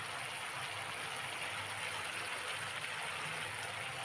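Steady sizzling and simmering of cauliflower and vegetables cooking in a pan over a low gas flame.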